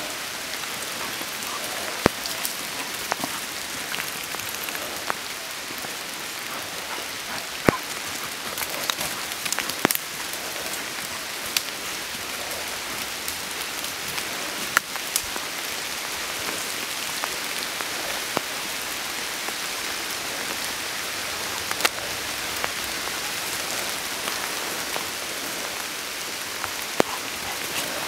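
Steady rain falling on the leaves and undergrowth of a woodland, a constant hiss with scattered sharp taps.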